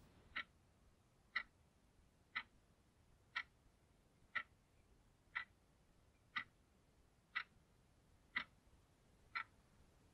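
A clock ticking slowly and evenly, one sharp tick a second, with silence between the ticks.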